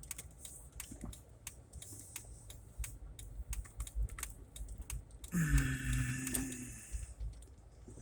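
Irregular light clicks, with a brief, louder pitched sound like a voice about five seconds in.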